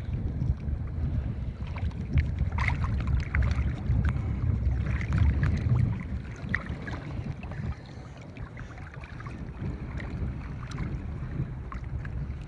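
Wind rumbling on the microphone, heavier for the first six seconds and then easing, over water lapping and a few small splashes as a large trout is held in the shallows for release.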